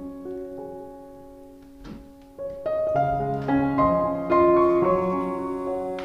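Background music: a piano playing a melody over held chords, quiet at first and louder from about two and a half seconds in.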